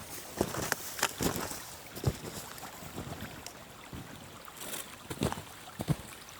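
Winter creek running, a steady rush of water with scattered sharp clicks and pops at irregular intervals.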